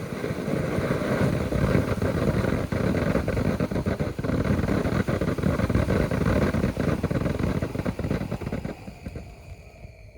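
A ShowTime Fireworks Lava Lamp fountain firework burning: a steady rushing spray with dense crackling clicks that dies away near the end as the fountain burns out.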